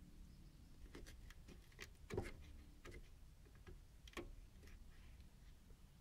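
Near silence, with a few faint clicks and taps from hands handling a metal chassis.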